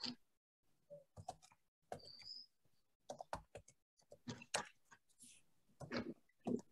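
Faint, irregular clicks and taps of a computer keyboard and mouse, several a second, as a document is being brought up on screen.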